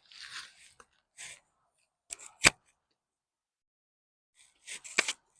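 Hands digging through dry potting soil in a fabric grow bag: short scattered rustles and scrapes, with a sharp snap about halfway through and another near the end.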